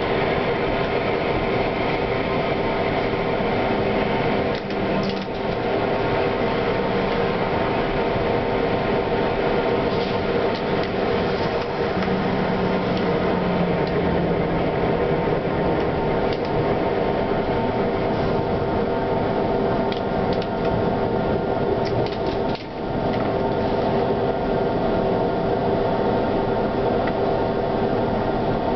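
Running noise heard from inside a light-rail tram: steady rolling of wheels on rails under a constant hum of several steady tones from its electrical equipment.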